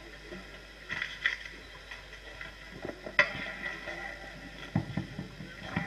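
Scattered knocks, bumps and handling noises, the sharpest about three seconds in and a few low thuds near the end, with faint brief voices in the background.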